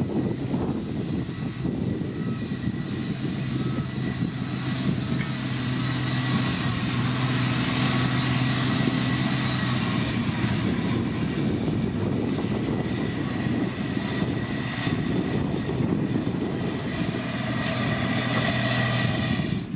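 Diesel engines of heavy road-building machinery running steadily, a continuous drone that swells a little midway and again near the end.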